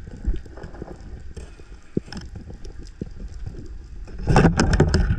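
Muffled underwater sound picked up through a camera's waterproof housing: a low rumble with scattered clicks and knocks, then a louder burst of rushing and knocking about four seconds in as the diver reaches and works the spear among the rocks.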